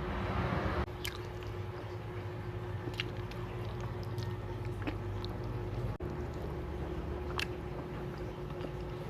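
Close-miked eating: a person chewing food with wet mouth sounds and scattered sharp mouth clicks.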